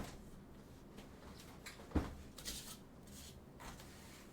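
Faint handling sounds as the keyboard's packaging is put away: one sharp knock about two seconds in, then light rustling.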